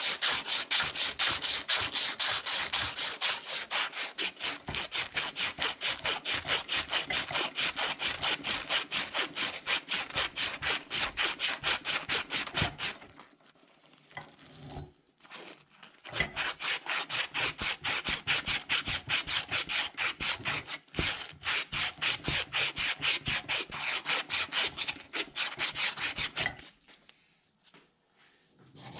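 A strip of sandpaper pulled rapidly back and forth around a rusty metal shaft, rasping in quick even strokes several times a second to scour off the rust. The strokes stop for a few seconds about thirteen seconds in, then resume and stop a couple of seconds before the end.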